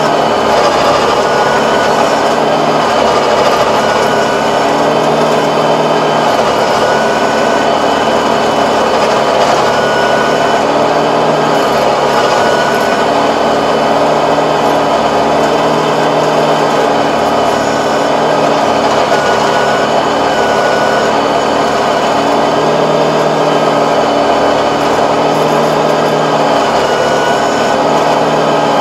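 Tractor engine running steadily under load, driving a rear-mounted Kobashi rotary tiller that churns through grassy soil.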